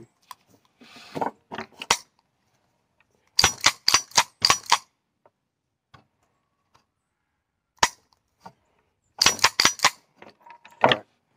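Smith & Wesson Performance Center 1911 pistol in .45 ACP firing. A quick string of about five sharp shots, a single shot a few seconds later, then another quick string of four or five.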